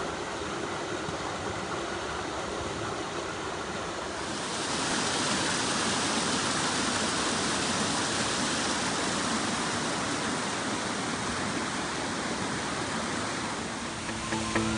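Mountain stream water rushing over rocks as a steady wash of noise, growing louder about four and a half seconds in.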